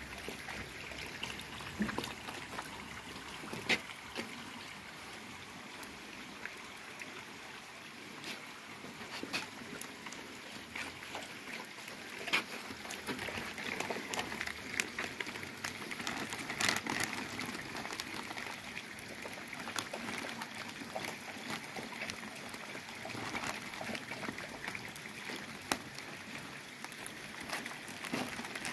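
Water trickling steadily into a garden pond, with scattered crinkles and clicks from plastic fish bags being handled at the water's edge.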